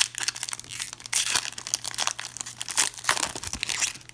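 Plastic wrapper of a Panini basketball-card pack crinkling as it is handled, a fast irregular run of sharp rustles. A faint steady low hum runs underneath.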